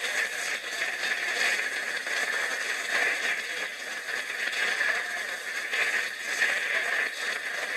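Audience applauding, a dense crackling patter that swells and eases without stopping.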